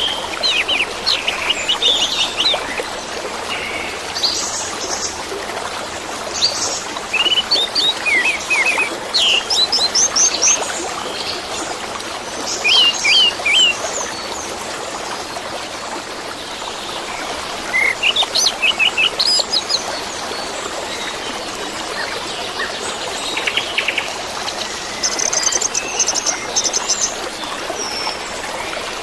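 Orange-headed thrush (anis merah) singing short bursts of quick, varied chirping phrases, separated by pauses of a few seconds, over the steady sound of running water.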